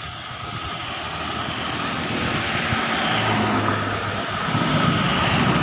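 A road vehicle drawing near and passing close by, its engine and tyre noise growing steadily louder.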